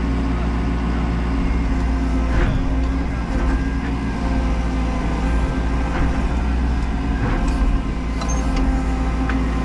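Menzi Muck M335 walking excavator's diesel engine running steadily, heard from inside the cab, as the hydraulic boom is worked, with a few faint knocks and clicks.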